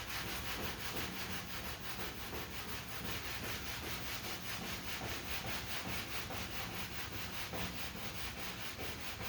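Sandpaper on a sanding block being rubbed back and forth over a primed body panel, block-sanding lacquer primer over a bondo dent repair in quick, even strokes.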